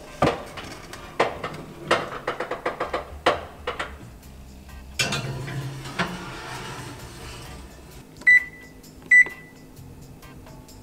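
Metal clanks and scraping as a cast-iron skillet is set on the oven's wire rack and pushed in, then two short, sharp electronic beeps from the oven's control-panel keys as the timer is set.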